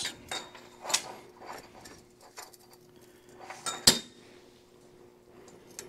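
Metal clinks and clicks as a pair of vise grips and a pipe-aligning clamp are handled against stainless steel exhaust tubing on a steel table. There are a few scattered light clinks, with one sharp click just before four seconds in.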